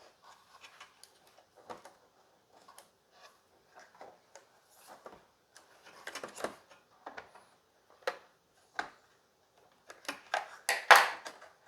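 Hands working inside an opened Xbox One X console: scattered light clicks, taps and clatter of plastic and metal parts being handled, with a louder run of knocks near the end.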